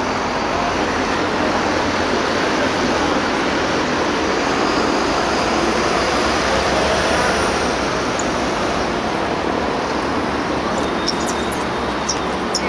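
A steady rushing outdoor noise, with a few short sharp clicks near the end.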